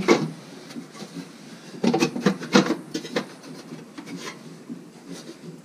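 Nissan 300ZX's sheet-metal muffler heat shield scraping and rubbing against the exhaust and underbody as it is worked into place by hand, in short irregular bursts that are busiest about two to three seconds in.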